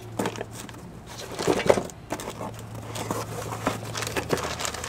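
Handling noise of hand tools and a new outer tie rod end: scattered clicks, scrapes and crinkling, with the loudest clatter about one and a half seconds in.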